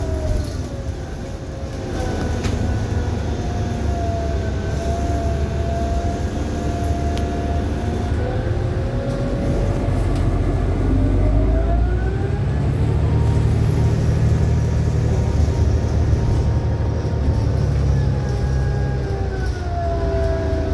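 Cabin sound of a 2018 New Flyer XDE60 diesel-electric hybrid articulated bus under way: a low diesel drone under a whining tone. The whine drops in pitch about a second in and rises again about halfway through as the bus slows and picks up speed, with the low drone growing stronger as it accelerates.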